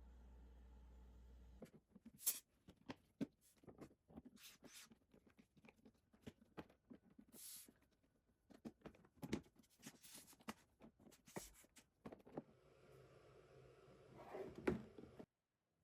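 Handling of collapsible silicone food-storage containers as they are folded down and stacked away. Faint, scattered clicks and taps run for about ten seconds, followed by a denser rustling stretch with a couple of sharper knocks that stops abruptly near the end.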